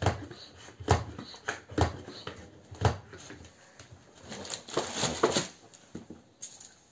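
Hand-pump pressure sprayer being pumped up: a sharp stroke about once a second for the first three seconds, then a longer rustling hiss about four and a half to five and a half seconds in.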